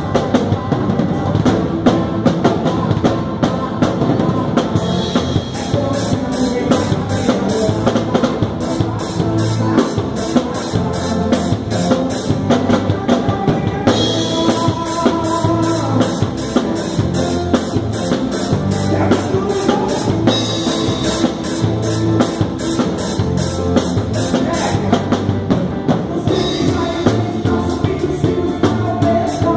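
Live band playing with a drum kit close by: steady cymbal and drum hits several times a second over bass and electric guitar.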